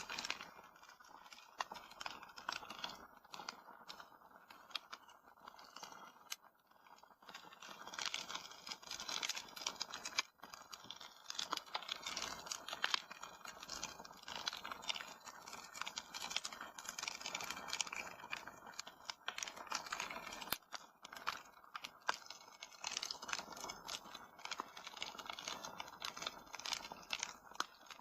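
Wood fire in a fireplace crackling, with dense irregular pops and snaps over a steady hiss.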